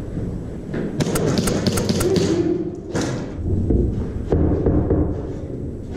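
Airsoft pistol firing down a concrete stairwell: a quick string of about six sharp shots about a second in, then two more single shots, with dull thumps in between.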